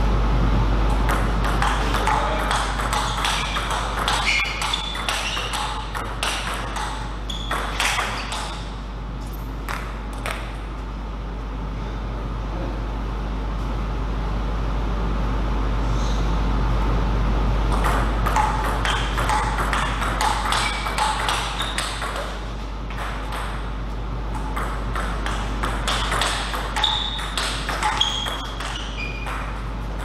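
Table tennis rallies: a celluloid/plastic ball clicking off paddles and the table in quick succession, in two rallies with a quieter pause between them and short high squeaks mixed in. A steady low hum runs underneath.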